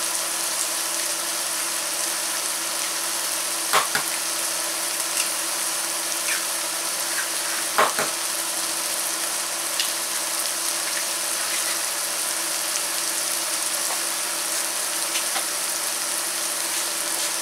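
Steady sizzle of asparagus, onion and garlic sautéing in a stainless steel pan, with a few sharp cracks of eggs being broken open, the clearest about four and eight seconds in.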